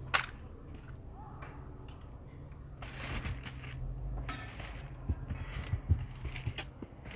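A sharp click just after the start, then several short knocks and thumps about five to six and a half seconds in, over a steady low hum.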